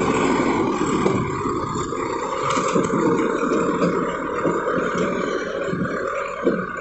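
JCB 3DX backhoe loader working, its engine running steadily under a dense clatter and scraping of small stones.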